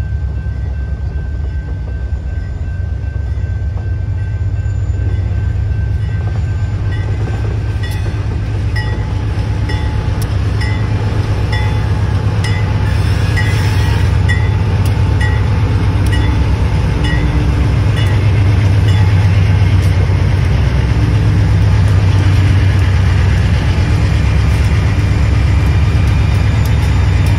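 Diesel freight locomotives of a seven-unit consist rumbling past a grade crossing, growing louder as the lead units pass. Through the middle of the passage a crossing bell rings at a regular beat over the engine noise.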